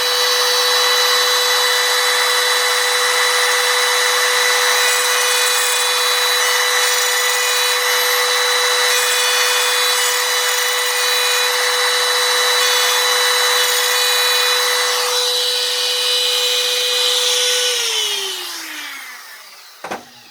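Router spinning a carbide bit at full speed with a steady high whine, cutting into a brass Master combination padlock. The cutting noise eases about 15 s in, and near the end the motor winds down with a falling whine.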